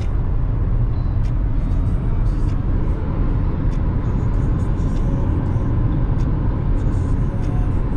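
Steady tyre and road noise with engine hum, heard inside a car's cabin at highway speed.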